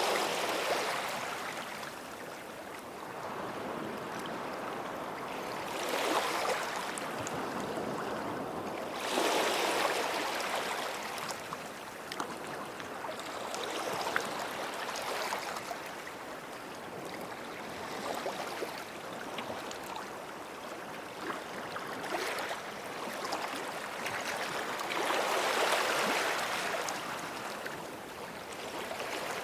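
Small sea waves breaking and washing up the shore, each wash swelling and fading every few seconds.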